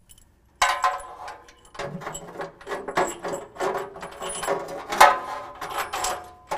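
Steel bolts, flat washers and lock washers clinking and jingling as they are handled and fitted onto bolts through a Jeep's rear cross member. The metallic clinks ring briefly, start about half a second in and go on irregularly, with the loudest clink about five seconds in.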